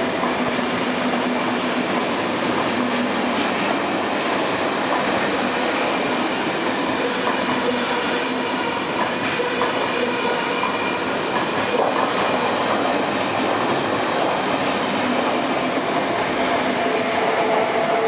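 KTT double-deck passenger coaches running through the station at speed without stopping: a steady rush of wheels on rail with occasional clicks over rail joints. It grows a little louder near the end as the train's electric locomotive goes by.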